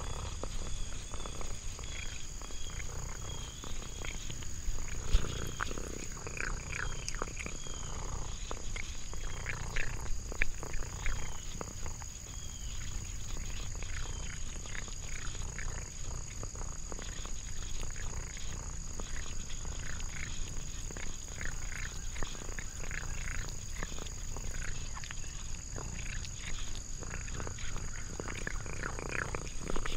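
A cat eating treats from a hand, with many small chewing and licking clicks. Behind it runs a steady high insect drone.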